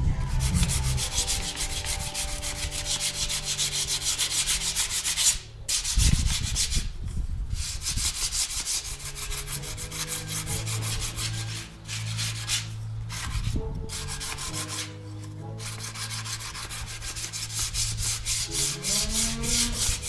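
Dry sandpaper rubbed by hand over a plastic bumper trim piece in quick, even back-and-forth strokes, stopping briefly a few times: the plastic being scuffed smooth as preparation for primer.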